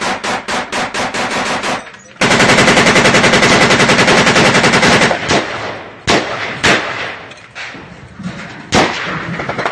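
Automatic small-arms gunfire: a rapid, even string of shots, then after a short break a long dense burst lasting about three seconds, followed by a few single shots spaced a second or two apart.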